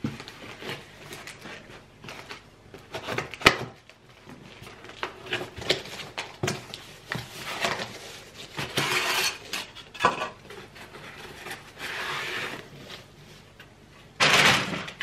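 Paper and cardboard gift packaging being cut with scissors and torn open by hand, rustling and crinkling in irregular bursts, with a sharp click about three and a half seconds in. Near the end comes a loud rustle as a bubble-wrapped item is pulled out.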